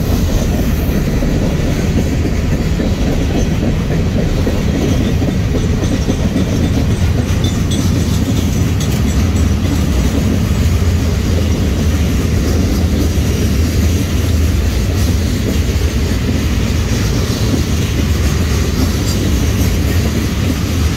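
Freight cars of a BNSF mixed freight train, open and covered hoppers, rolling past close by: a loud, steady rumble of steel wheels on the rails that does not let up.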